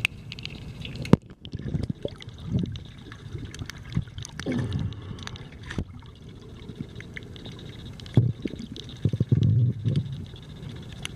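Water heard underwater by a submerged camera: muffled, irregular surges of sloshing and gurgling, strongest around the middle and near the end, with scattered sharp clicks, the loudest about a second in.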